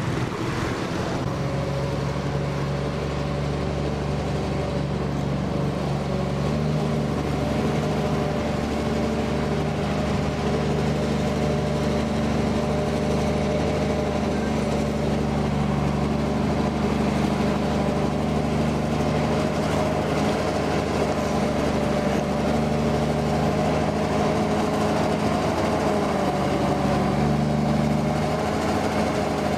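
Diesel engine of a heavily loaded lorry running at a steady, unchanging pitch as the lorry comes slowly closer, getting slightly louder.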